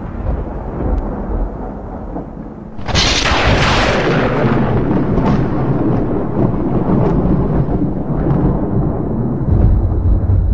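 Thunder: a low rumble, then a sharp, loud thunderclap about three seconds in that rolls on as a long rumble.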